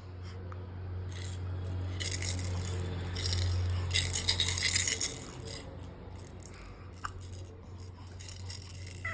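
Baby's rattle toy being shaken in irregular bursts, loudest from about two to five seconds in, then fainter scattered shakes. A steady low hum runs underneath.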